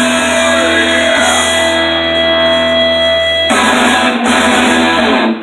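Loud guitar music with long held notes that thickens into a fuller passage about three and a half seconds in, then cuts off abruptly near the end.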